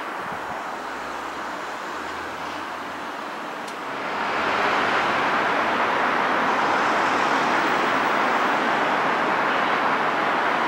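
Steady hiss of passing vehicle traffic, swelling about four seconds in to a louder, even rush that holds.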